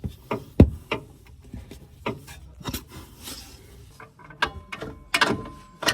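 Irregular clicks and knocks of hand tools working on a car's front wheel hub, with one sharp knock about half a second in.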